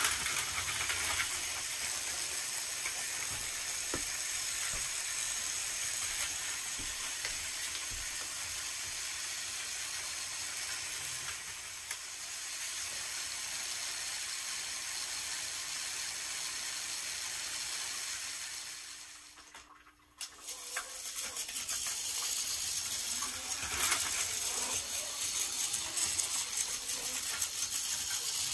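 Battery-powered Plarail toy trains running on blue plastic track: a steady whirring, hissing rattle of small motors and wheels. It fades out briefly about two-thirds of the way through, then comes back with scattered clicks.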